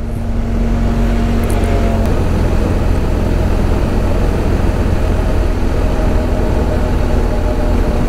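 BMW R 1250 GS Adventure boxer-twin motorcycle under way at a steady speed: an even engine drone with wind and road rush over it. A faint steady whine in the sound changes pitch about two seconds in.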